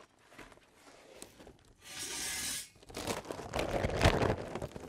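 A heavy paper bag of charcoal briquettes being handled, its paper crinkling and rustling, louder from about three seconds in, with a thump about four seconds in.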